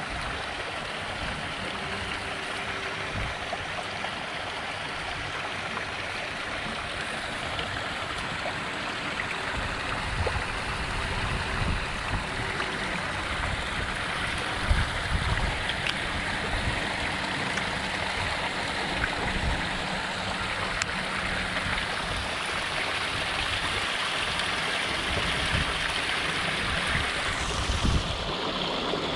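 Water pouring over a small weir in a concrete irrigation canal, a steady rushing splash into the churning pool below that grows somewhat louder. A single sharp knock comes about halfway through.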